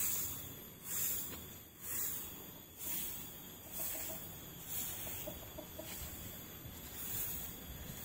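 Chickens clucking faintly a few times around the middle, over a rhythmic rustling hiss that swells about once a second.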